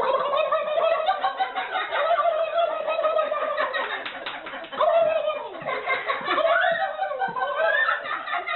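People laughing hard and continuously in high, wavering peals, with a few words mixed in.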